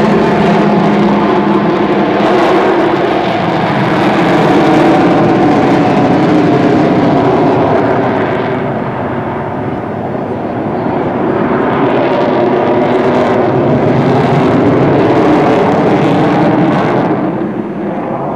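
Avro Vulcan's four Rolls-Royce Olympus turbojets running loud as the delta-wing bomber flies past and banks away. The sound eases slightly midway, rises again, and fades near the end.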